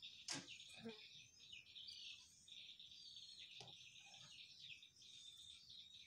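Faint outdoor birdsong, many short chirps, over a steady high drone of insects. There are a few faint clicks about a third of a second in, near one second and past the middle.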